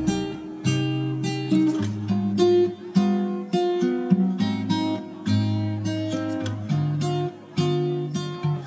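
Background music: an acoustic guitar strumming chords, about one chord a second, each struck and left to ring.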